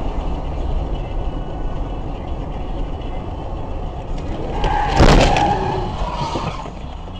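Steady road and engine noise of a car driving in traffic, picked up by a dashcam. About five seconds in there is a sudden loud bang, with a brief high tone around it, and then the level falls back.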